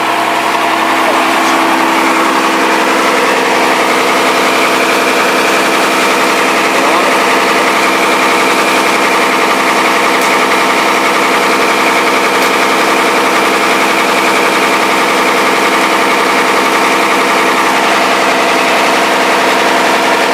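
A vehicle engine idling steadily close by: a constant hum with several fixed tones over a hiss.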